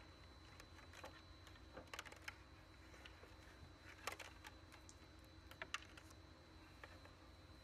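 Faint, scattered clicks and taps of hands handling wiring and a plastic-cased unit against particle board, the loudest about four seconds in, over a low steady hum.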